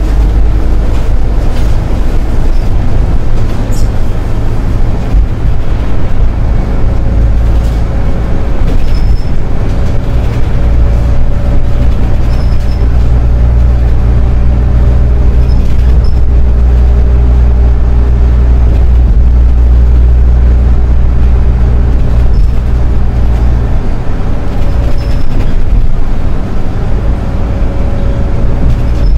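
Solaris Urbino 12 IV city bus driving, its engine and drivetrain running with a steady low hum and faint tones that slowly shift in pitch.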